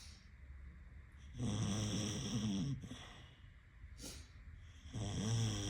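Snoring: two long, pitched snores, the second starting about three and a half seconds after the first.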